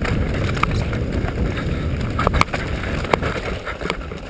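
Mountain bike descending a rough dirt trail: a steady rumble of tyres and bike over the ground, with the frame and parts rattling and several sharp clacks as it hits bumps.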